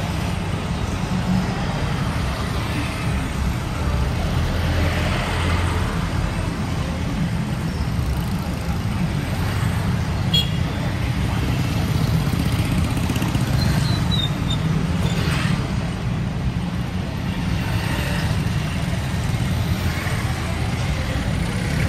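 Street traffic: motorcycles and motorcycle tricycles passing close by, over a steady low engine rumble. A couple of brief high squeaks come about ten and fourteen seconds in.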